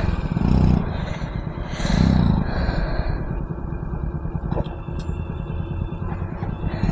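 Small single-cylinder motorcycle engine running at low revs, blipped louder about half a second and again about two seconds in, as the bike works slowly through deep mud. A faint click comes about five seconds in.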